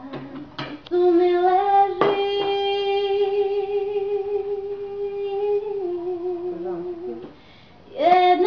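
A single voice singing, holding one long note for about five seconds that steps down slightly near the end, then breaking off briefly before a new note starts near the end.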